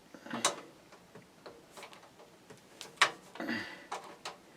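Scattered sharp clicks and light knocks of a screwdriver and metal parts as screws are worked out of a PC power supply at the back of the case; the sharpest click comes about three seconds in.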